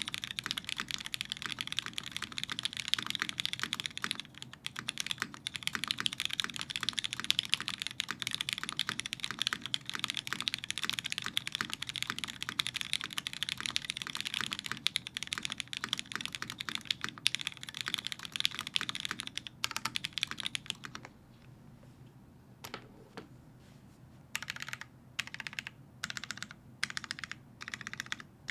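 Fast, continuous typing on a custom mechanical keyboard with lubed Cherry MX2A Black linear switches, a top-mounted aluminium plate and GMK keycaps. About three-quarters of the way through the typing stops for a few seconds, then resumes as slower, separate key presses.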